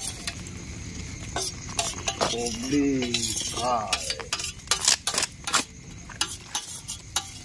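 Metal utensils and cookware clinking and scraping as chicken is handled and cooked, in a string of sharp clinks.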